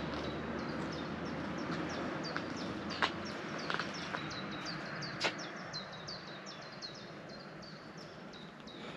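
Small songbirds singing a rapid string of short, high, falling chirps, several a second. Under them a low rumble stops about three seconds in, and there are sharp clicks at about three and five seconds.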